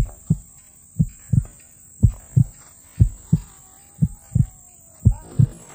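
Heartbeat sound effect used for suspense: deep paired lub-dub thumps, about one beat a second, evenly spaced.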